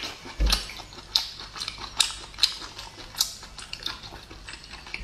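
Close-miked chewing of braised abalone: irregular wet clicks and smacks from the mouth. Toward the end comes the light knock of an abalone shell being picked up off a ceramic plate.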